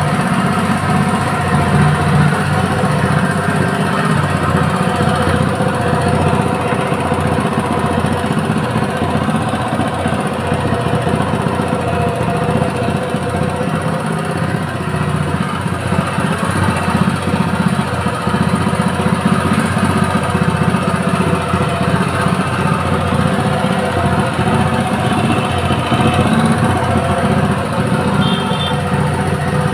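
Honda GX200 single-cylinder four-stroke engine running steadily on LPG fuel.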